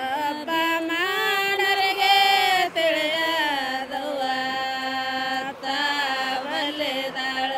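A voice singing a slow chant in long, held notes that glide smoothly from one pitch to the next.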